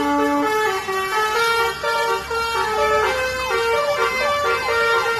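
Bus telolet horn, a multi-trumpet musical air horn, playing a tune: a quick run of held tones stepping from pitch to pitch every fraction of a second.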